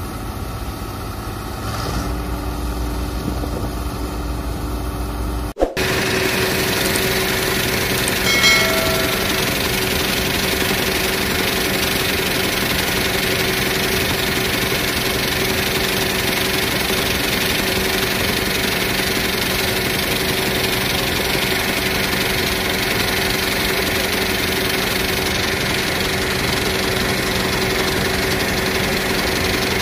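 Deutz-Fahr M 2385 combine harvester running steadily. It gets louder and fuller after a cut about five and a half seconds in, with a brief high tone near eight and a half seconds.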